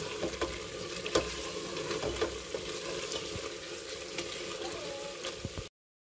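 Mutton korma masala sizzling in an aluminium pressure cooker while a wooden spatula stirs it, scraping and knocking against the pot. The meat has finished browning (bhunai) and water is being stirred in. The sound cuts off suddenly near the end.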